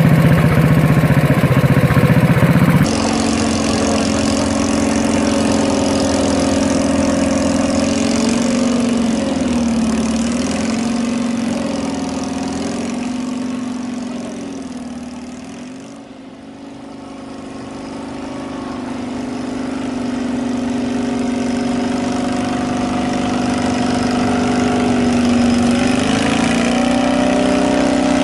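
Walk-behind tractor engine running steadily. About three seconds in, a different engine sound takes over; its pitch wobbles a little, it fades to its quietest about halfway through, then grows louder again.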